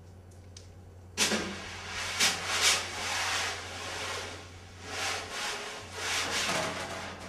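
Hissing, swishing strokes from live percussion, in several swells that rise and fade, starting about a second in, over a steady low hum.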